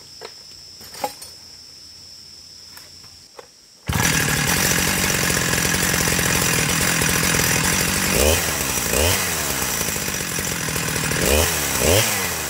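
A few light clicks and knocks, then a chainsaw engine starts abruptly about four seconds in and runs steadily. It is revved briefly four times, in two pairs.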